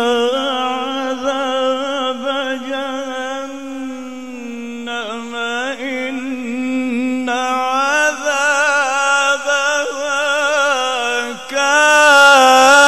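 A man reciting the Quran in melodic tajweed style, heard through a PA sound system. He sustains one long phrase with wavering, rippling ornaments that swells louder near the end.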